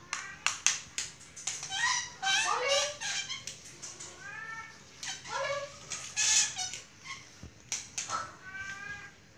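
Cat mewing over and over, short high calls that rise and fall in pitch, amid many sharp taps and clicks.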